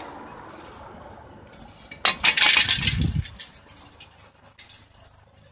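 Loose metal parts and tools clinking and clanking: a burst of clattering about two seconds in, then a few light clicks.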